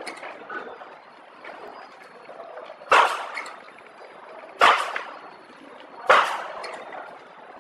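Pillow-type flow-wrap packaging machine running, with a sharp hissing snap about every second and a half over a steady low mechanical noise.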